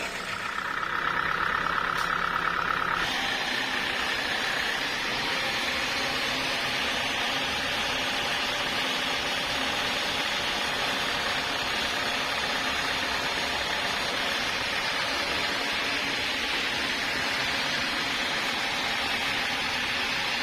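Sawmill machinery running steadily. A high whine for about the first three seconds gives way to an even hiss.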